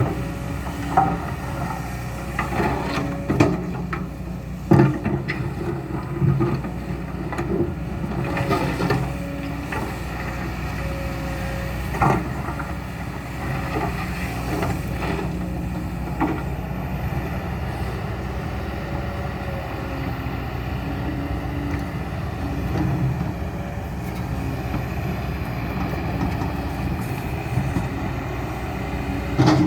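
Kobelco SK200-10 diesel excavator running under load, its engine rumbling steadily with a held tone that shifts in pitch as it works. Sharp clanks and knocks come every few seconds through the first half, then fewer toward the end.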